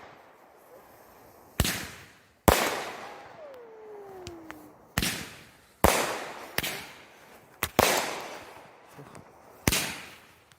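Fireworks going off: about eight sharp bangs at irregular intervals, each trailing off in a fading echo, two of them in quick succession near the middle.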